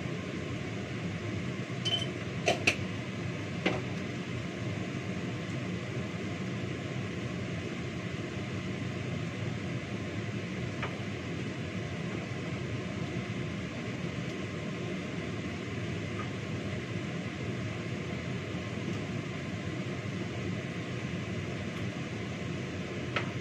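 Steady whir of a kitchen extractor fan, with a few sharp knocks about two to four seconds in.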